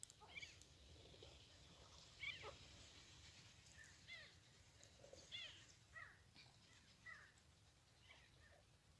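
Flock of sandgrouse calling in flight: faint, short chirping calls about once a second, thinning out near the end.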